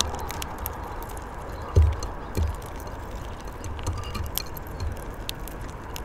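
Irregular small sharp clicks of a bullfinch and a greenfinch pecking and cracking seeds in a terracotta dish on a wooden bird table, over a steady low background rumble. Two dull low thumps come about two seconds in.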